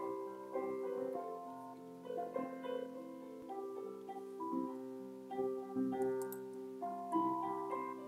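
Piano music: a slow melody over held chords.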